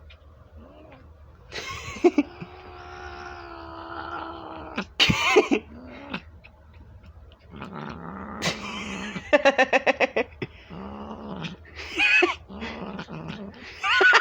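Domestic cat making weird noises while being fed by hand. A long, wavering, drawn-out call comes about two seconds in, then short loud cries, a quick stuttering run of about ten pulses a second just past the middle, and more short cries near the end.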